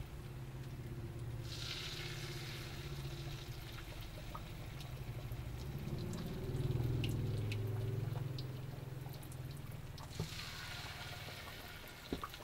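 Batter-coated banana slices sizzling and spattering in hot oil in a wok, over a steady low hum. The frying grows louder a little past halfway.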